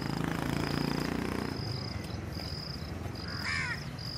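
Insects chirping in steady repeated trains, with a motor vehicle's engine running low in the first second and a half. A crow caws once about three and a half seconds in.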